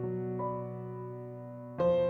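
Slow background piano music: held notes fading away, with a new chord struck near the end.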